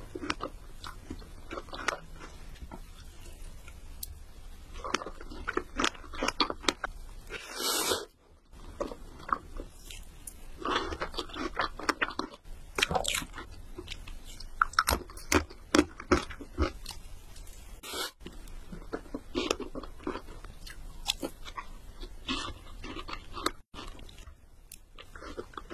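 Close-miked mouth sounds of a person eating strawberry cake: irregular bites and wet, crunchy chewing in clusters, with short pauses, over a faint steady low hum.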